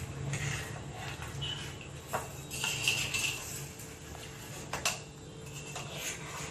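Metal knife scraping and tapping against the metal steaming plate while cutting a soft steamed vattiappam into pieces: a few sharp clicks and a short scrape.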